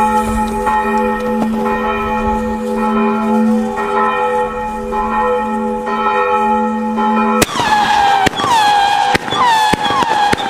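Church bells pealing, their strikes overlapping in a steady ringing. About seven seconds in the bells cut off abruptly and a firework battery takes over: sharp cracks and a rapid string of whistles that each fall in pitch.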